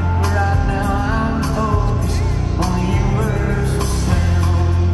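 Live band music: a man singing over acoustic guitar, drums and a steady bass line, with regular drum and cymbal hits.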